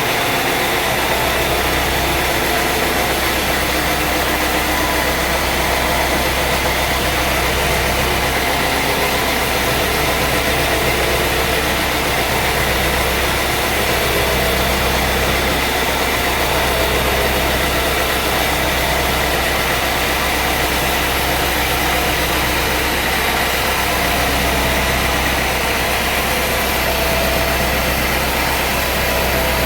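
Sawmill engine running steadily, a constant hum with no change in pitch or load.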